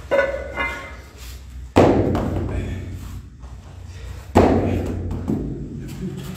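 Two heavy thuds about two and a half seconds apart, each dying away over about a second: iron weight plates dropped onto a padded gym floor.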